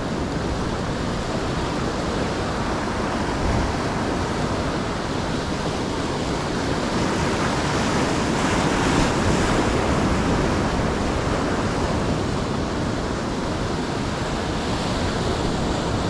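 Ocean surf washing in with wind on the microphone: a steady rushing that swells slightly about halfway through.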